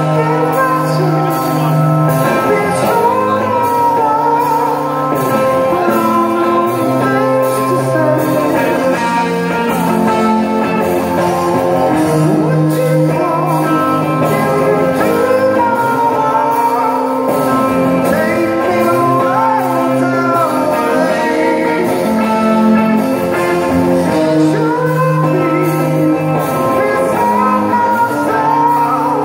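Live rock band performing with guitars and a male lead singer, heard from the audience in a large arena hall.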